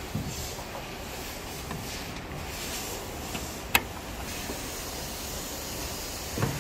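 Handling noises of a plastic taillight assembly being worked loose by hand, with one sharp click a little under four seconds in, over a steady background hiss.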